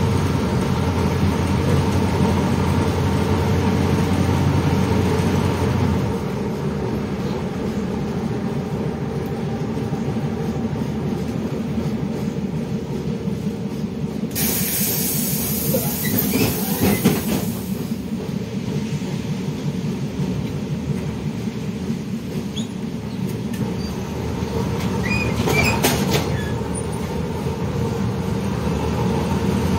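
Inside a 1990 LiAZ-677M city bus under way: its ZIL V8 engine runs steadily with a strong low hum for the first six seconds, then eases off. A loud hiss about halfway through lasts some three to four seconds.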